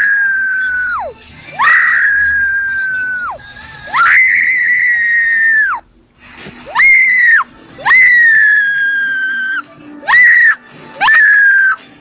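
A girl screaming over and over in high, held shrieks, each one shooting up sharply in pitch, held, then dropping off at the end. Some screams last nearly two seconds and others are short, about half a second.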